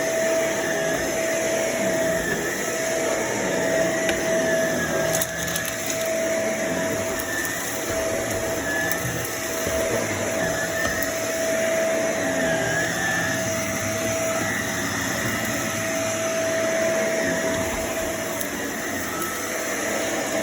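Vacuum cleaner running steadily with a constant whine, picking up dirt, with a little crackling of debris.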